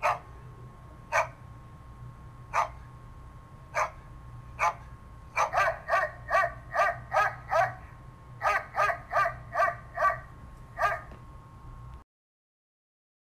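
A dog barking. Single barks come every second or so, then two quick runs of barks at about three a second, and a last single bark.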